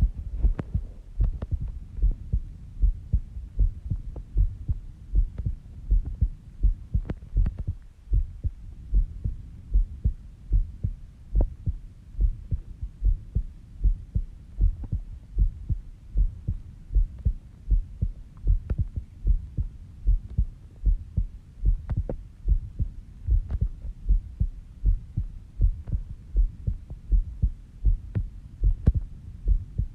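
A human heartbeat recorded up close: a steady run of low, dull thumps at a little over one a second. It is a slow resting heartbeat during sleep, about 70 beats a minute.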